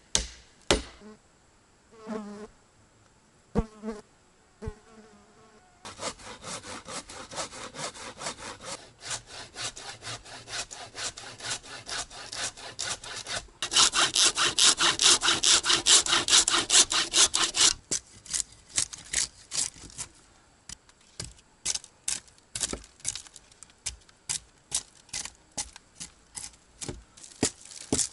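Hand saw cutting through wood in quick back-and-forth strokes, much louder for about four seconds near the middle. After the sawing stops, sharp hatchet strikes on wood follow, about two a second.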